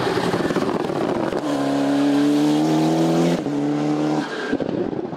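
Race car engines at full throttle: a car rushes past, then an engine holds a high, steady note that breaks off briefly about three and a half seconds in, picks up again, and fades away near the end.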